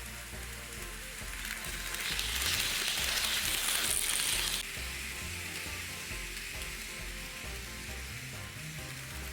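N gauge model train running on its layout track: a hissing rolling noise of wheels and motor that swells about two seconds in and cuts off suddenly at about the halfway point.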